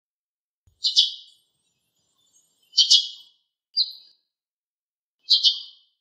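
Eurasian tree sparrow giving its everyday contact calls: four short bouts of chirping, most of them quick double chirps, one or two seconds apart.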